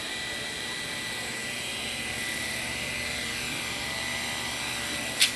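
Model intermeshing twin-rotor helicopter (synchropter) hovering close to the ground: its motor and rotors make a steady, high whine. A single sharp knock stands out near the end.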